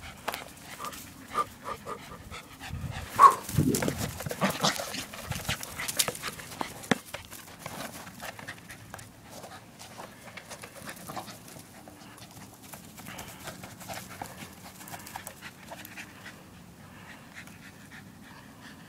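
A West Highland white terrier panting and scuffling as it plays with a basketball. Several sharp knocks and scrapes in the first seven seconds, then quieter rustling.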